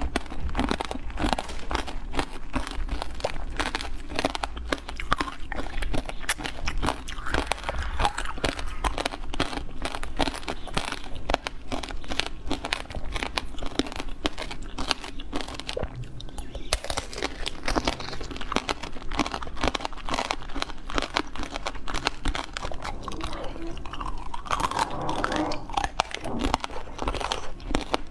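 Close-miked eating: continuous crunching and chewing, a dense run of sharp crunches many times a second.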